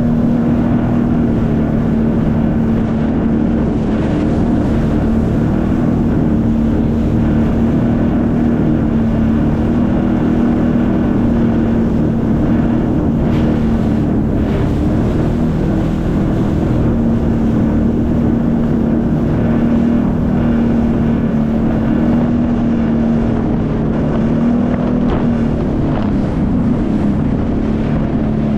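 Sea-Doo jet ski engine running at a steady cruising speed, its drone holding an almost constant pitch, with wind buffeting the microphone.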